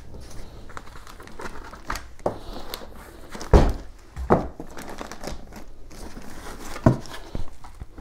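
White foam packing end-caps being pulled off a plastic-wrapped NAS unit: foam rubbing and plastic wrap crinkling, with foam blocks knocking down on the table, the loudest knock about three and a half seconds in and others near four and seven seconds.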